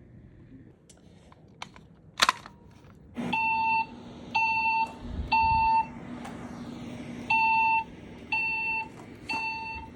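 Wheelock E60 speaker strobe sounding a temporal-three evacuation tone: three half-second beeps, a pause, then three more, over a faint steady hum. A few sharp clicks come before the beeps, the loudest about two seconds in.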